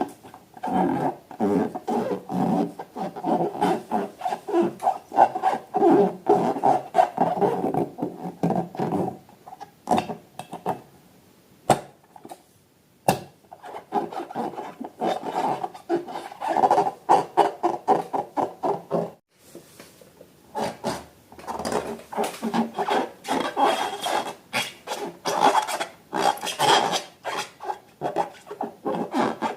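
Hands working slime, making a rapid, crackly rubbing and squishing sound that stops for a couple of seconds about ten seconds in and again about nineteen seconds in.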